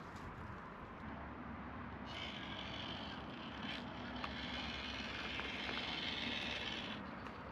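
WPL C64-1 RC crawler's small electric motor and gearbox whining as it drives, starting about two seconds in and cutting off near the end.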